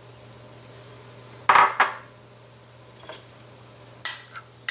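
Kitchenware knocking against an aluminium pressure cooker: one sharp clank with a short metallic ring about a second and a half in, then a quick run of lighter clinks near the end.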